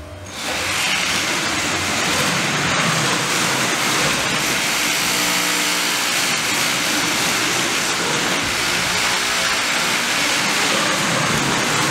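Small wheeled competition robot driving across a carpet, its electric drive motors and ball intake running with a loud, steady whirring noise that starts about half a second in.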